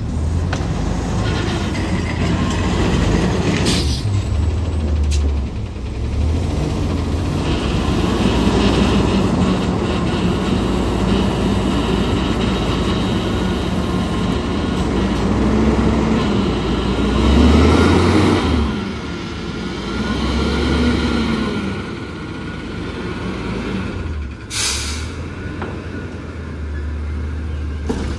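Curotto-Can garbage truck's engine running steadily, revving up and down several times about two-thirds of the way through, with a couple of knocks early on and a short air hiss near the end.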